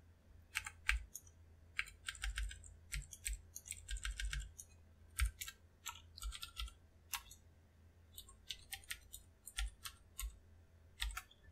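Typing on a computer keyboard: irregular runs of light keystroke clicks, busiest in the first half and again near the end, with a short lull in between.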